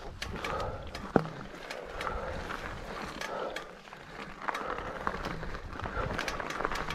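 Enduro mountain bike riding down a rocky gravel singletrack: tyres rolling over loose stones, with scattered clicks and rattles and one sharp knock a little over a second in.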